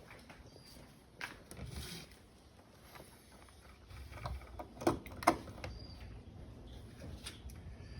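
Scattered handling clicks and knocks, a few light ones near the start and two sharper knocks about five seconds in, over a low rumble.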